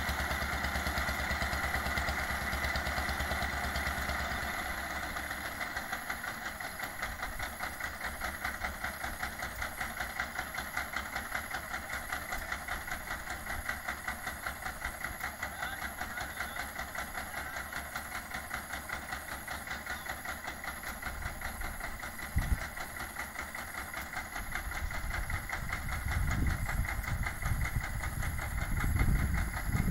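Boat engine running with a steady rhythmic chug. A single knock comes a little past halfway, and a louder low rumble builds near the end.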